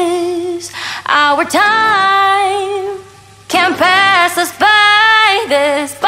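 Background pop song: a woman singing long held notes with vibrato, in several phrases.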